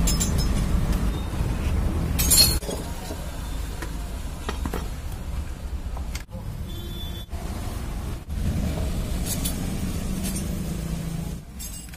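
Metal tool and bolt clinks as the oil-filter cover is unbolted from a Hero Karizma motorcycle engine, with one sharp clink about two seconds in. A steady low rumble runs underneath and is the loudest part of the sound.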